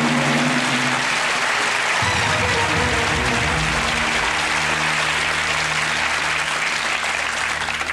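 Studio audience applauding a correct answer over the quiz show's sustained music cue, whose low held notes shift about two seconds in.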